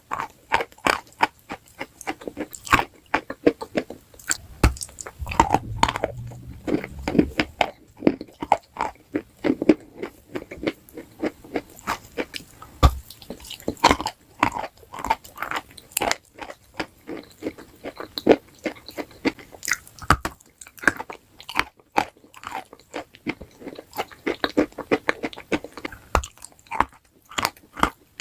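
Close-up crunching bites and chewing of crisp, brittle food, a fast irregular crackle of many sharp snaps.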